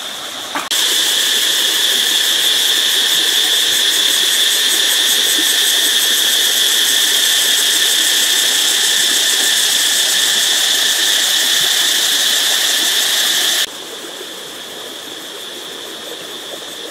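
Steady high-pitched insect drone. It starts suddenly about a second in and cuts off suddenly a few seconds before the end, after which a fainter drone at the same pitch carries on.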